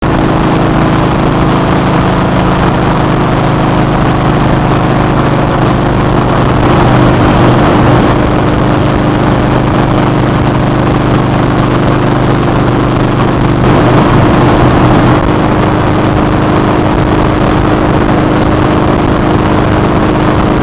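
Motorcycle engine running steadily at highway cruising speed, under loud wind and road rush. The rushing noise swells briefly twice, about a third and two thirds of the way through.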